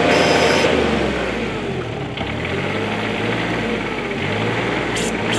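Bobcat 320 mini excavator engine running steadily, its note shifting and easing slightly about two seconds in.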